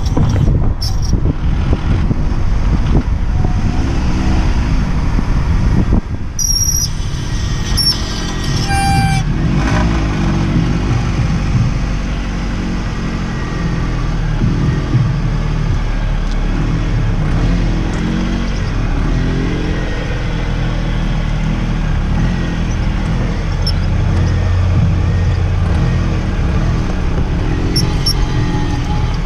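Car engine and road noise: a steady low drone whose pitch rises and falls, with a few brief high-pitched tones around a third of the way in.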